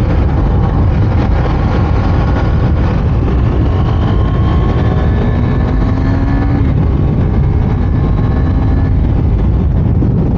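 KTM Duke 390's single-cylinder engine pulling hard under acceleration, its pitch rising, dropping at an upshift about two-thirds of the way through, then rising again, under a heavy rush of wind on the microphone at speed.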